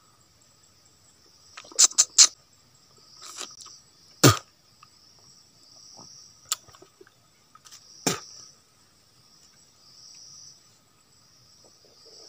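Forest insects chirping in a steady high-pitched buzz that swells and fades every couple of seconds. Over it come several sharp, close clicks and smacks, the loudest a cluster about two seconds in and single ones about four and eight seconds in.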